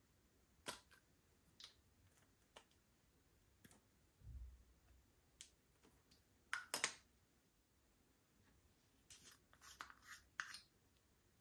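Small sharp clicks and pops from hands working slime and makeup: a few single clicks, a double click about two-thirds of the way in, and a quick cluster near the end. There is also one soft low thump about four seconds in.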